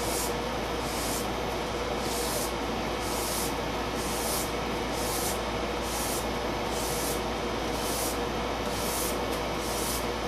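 Steel blade being stroked across abrasive sandpaper on a backing pad for convex edge sharpening, a rasping hiss about once a second with light pressure. A steady hum runs underneath.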